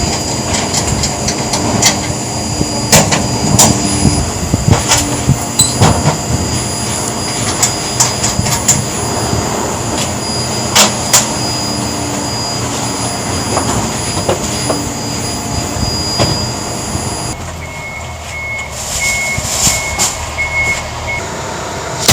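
Electric drill running in short bursts with a steady hum, broken up by repeated sharp knocks. About three-quarters of the way through the high whine stops and a short high beep repeats for a few seconds.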